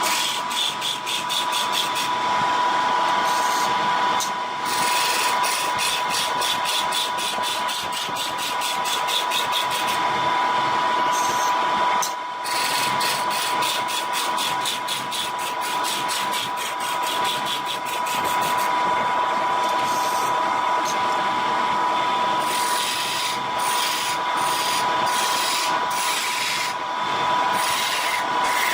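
A wood lathe running with a steady whine while a turning tool cuts the spinning vase blank. In several stretches the cut gives a fast, even run of ticks.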